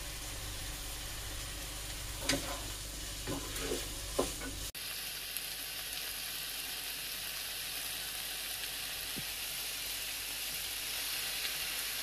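Chopped vegetables (onion, capsicum, carrot and corn) sizzling as they fry in a pan, with a few light knocks of stirring between about two and four seconds in.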